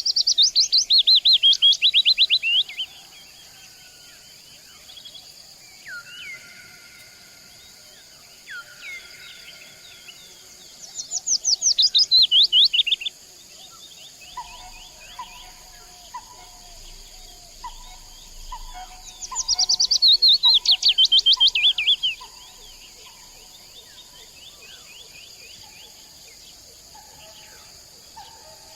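Wild songbirds singing. One bird repeats a loud two-to-three-second song of rapid notes falling in pitch, about every ten seconds. Softer whistles and a run of repeated notes from other birds fill the gaps, over a steady high-pitched tone.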